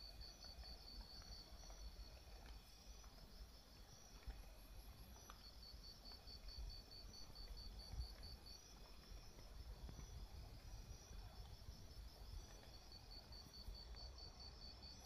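Faint insect chirping, a fast train of evenly spaced high pulses, over a low rumble.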